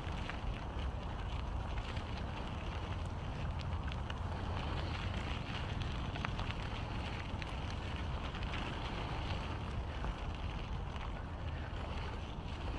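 Wind rushing over the camera microphone while riding a bicycle, a steady low rumble with tyre hiss underneath and a few faint ticks.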